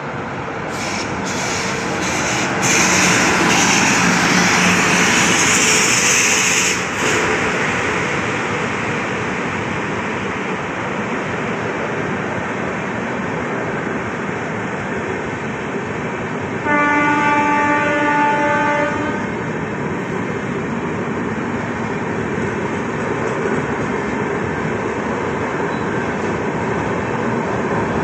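Rajdhani Express passenger train running through a station without stopping. The locomotive goes by with a loud rush in the first few seconds, then the coaches roll past with a steady rumble and clatter. About sixteen seconds in, a train horn sounds one steady note for about two and a half seconds.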